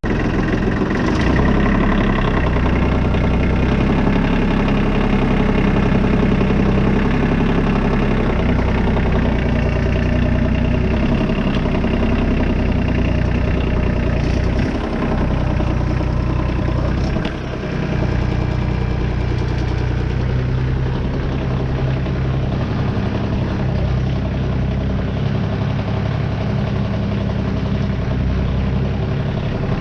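New Holland 1725 compact tractor's diesel engine running steadily under load while pulling a moldboard turning plow through the ground, with a brief dip in level about seventeen seconds in.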